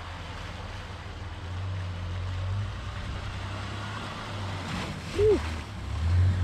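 An off-road vehicle's engine running at a steady idle, growing louder near the end, with a brief rising-and-falling tone about five seconds in.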